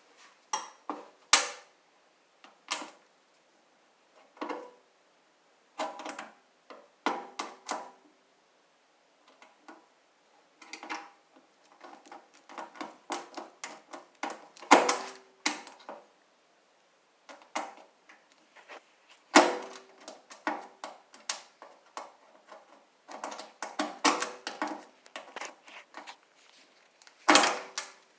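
Hand tools clinking, tapping and scraping on the metal parts of a Craftsman table saw being taken apart: irregular clicks and knocks, several ringing briefly, the loudest about a second in, around halfway, and near the end.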